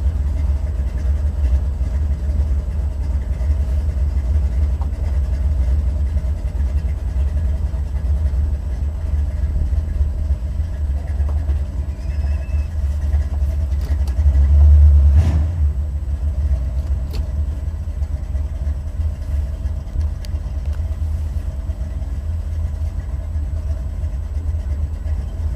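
Buick 455 V8 in a Regal running with a steady low rumble, heard from inside the car. About halfway through it swells louder for a second or so, followed by a single sharp knock.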